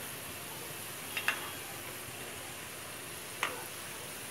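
Gujiyas deep-frying in hot oil in an iron kadhai, a steady sizzle, with a few sharp clinks of a metal slotted spoon against the pan about a second in and again near the end.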